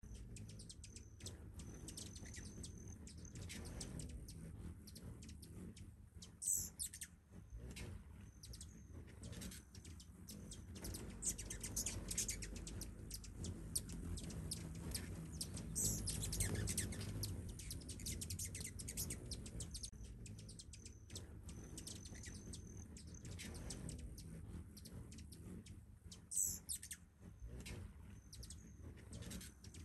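Hummingbirds chipping and chattering as they hover and chase each other around feeders, with short high notes and three loud, falling squeals, over a low steady rumble.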